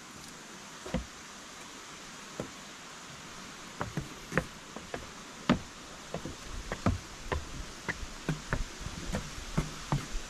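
Footsteps climbing a wooden staircase: irregular knocks of feet on the wooden steps, sparse at first, then two or three a second from about four seconds in.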